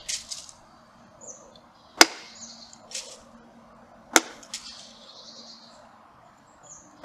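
Knife chopping down into small pieces of firewood to split them, striking with the wide dull back edge of a PUMA White Hunter blade: three sharp chops about two seconds apart, the last right at the end, each followed by a short crackle and clatter as the wood splits and falls.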